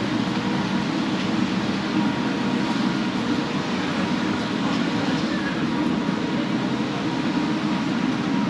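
Steady city street traffic noise: a continuous low rumble of vehicles with a faint steady hum over it.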